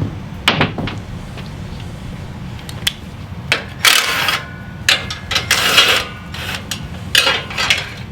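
Hand tools working on a mini bike's metal parts: scattered clicks and clanks, with two longer noisy bursts about four and six seconds in.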